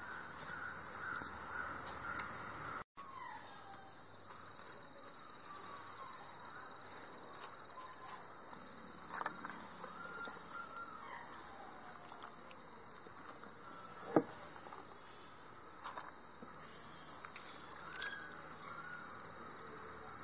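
Birds calling over a steady high-pitched insect drone, with light clicks from raw jackfruit pieces being cut and handled in a clay pot, and one sharper knock about two-thirds of the way through.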